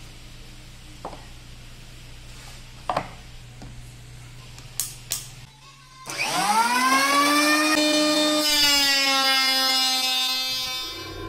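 Electric hand planer's motor starting: a whine that climbs quickly in pitch, then runs steady at full speed. Before it come a few light clicks and knocks of the tool being handled.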